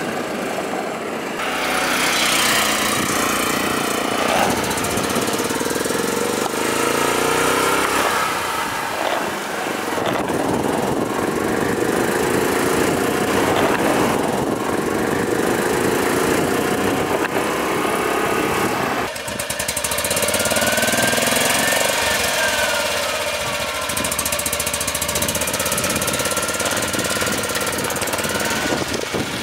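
1958 BMW Isetta 300's small 298 cc single-cylinder engine running as the car drives. The note climbs in pitch as it accelerates and drops back at each gear change.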